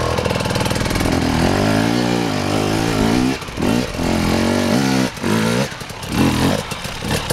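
KTM two-stroke enduro motorcycle revving in repeated bursts while climbing a steep dirt slope, its pitch rising and falling several times with short drops between the bursts.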